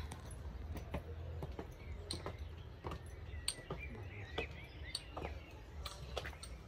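Footsteps clicking irregularly on stone steps, with a small bird chirping a short run of notes in the middle, over a steady low rumble.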